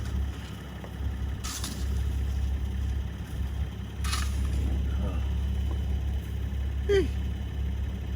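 Two short scrapes of snow being cleared, about a second and a half and four seconds in, over a steady low rumble. A brief falling vocal sound comes about seven seconds in.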